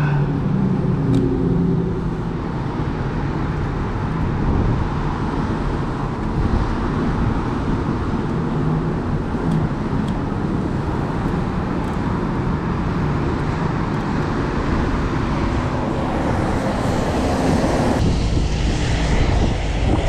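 Steady rumble and hiss of street traffic on wet roads. The sound changes abruptly near the end.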